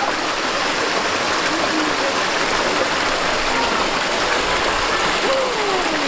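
Steady rush of a mountain stream and its small waterfalls pouring over rocks.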